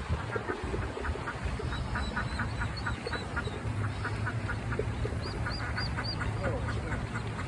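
A mother duck and her ducklings calling: a steady run of short calls, about three or four a second, with four high rising-and-falling duckling peeps about five seconds in. A steady low hum runs underneath.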